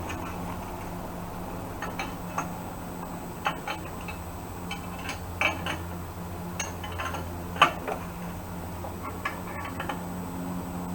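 Steel combination wrench clinking and ticking against the quick hitch's nuts and bolts in irregular light taps as the locking nuts are tightened, the sharpest clink about eight seconds in. A steady low hum runs underneath.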